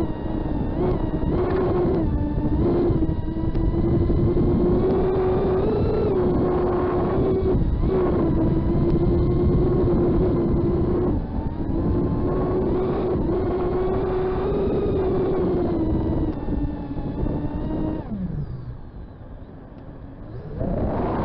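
FPV quadcopter's brushless motors and propellers buzzing in flight, the pitch wavering slightly as the throttle changes. About 18 s in the throttle is cut: the buzz slides down in pitch and drops away, then it powers back up just before the end.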